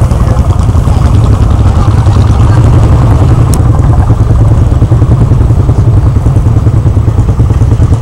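Lanz Bulldog single-cylinder two-stroke hot-bulb engine running steadily at idle, with a fast, even beat.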